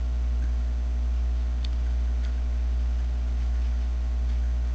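Steady low electrical mains hum with a faint hiss, with two or three faint short clicks about halfway through.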